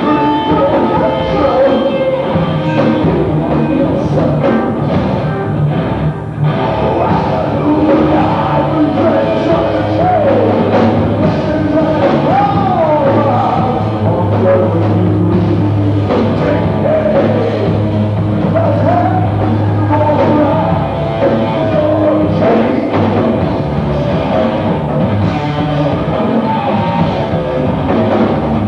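Live rock band playing, with a drum kit and a voice singing over it.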